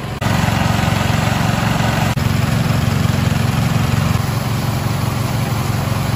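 Two small petrol-engine water pumps running steadily at work, with water gushing from their outlets and splashing onto rock.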